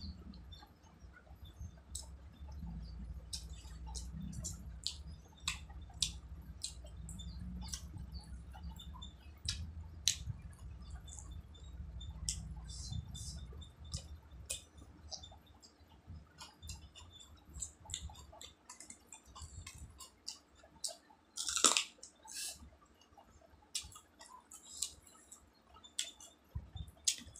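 Close-up eating sounds of rice and chicken eaten by hand: chewing with many small wet mouth clicks and smacks, one louder mouth sound a little past two-thirds of the way through, and a low rumble under the first half.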